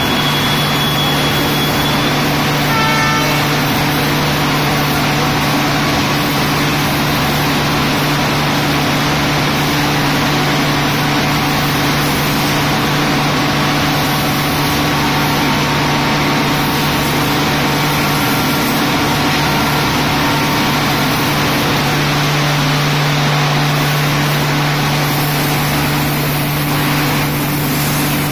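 High-pressure water jet hissing as it washes the railway track, over a steady low machine hum. A short toot sounds about three seconds in.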